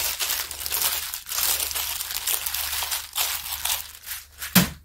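Crinkling and rustling of plastic packaging being handled, ending in a single sharp tap about four and a half seconds in.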